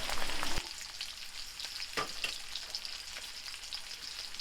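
Pork fat sizzling and crackling in a hot pan, with one sharper pop about two seconds in.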